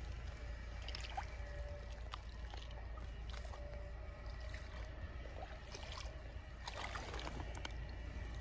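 Shallow creek water trickling, with small splashes and sloshing as a hand and foot move in the shallows. The splashes cluster about seven seconds in, over a steady low rumble.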